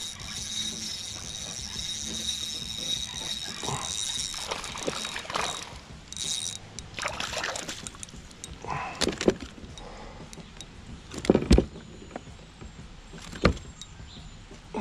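Handling noises aboard a fishing kayak on a pond, with water moving against the hull. A thin high steady tone for the first five seconds, then two sharp knocks against the hull in the second half, the first the louder.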